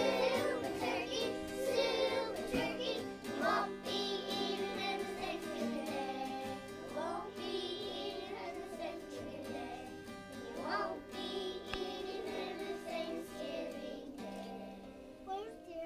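A group of children singing a song together over a steady instrumental accompaniment.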